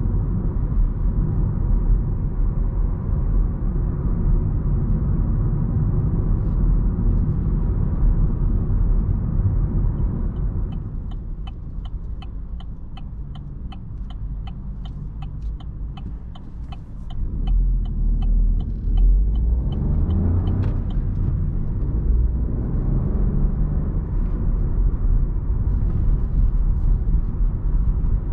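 Driving noise of a 2020 Opel Astra with a 1.2-litre turbocharged three-cylinder petrol engine: steady road and engine rumble. About ten seconds in the car slows and a turn-signal indicator ticks at about three clicks a second. The engine then pulls away with rising revs while the ticking stops.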